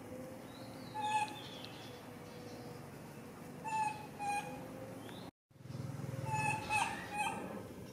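Short, clear animal calls, mostly in quick pairs, heard three times over a faint steady background hum, with a brief break in the sound about two thirds of the way through.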